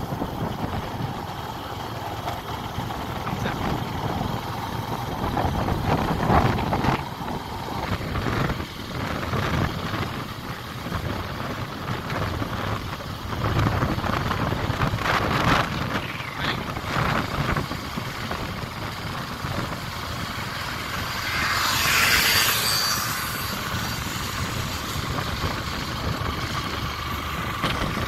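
A vehicle on the move: its engine runs steadily under wind rushing and buffeting irregularly on the microphone, with a louder rush of hiss about three-quarters of the way through.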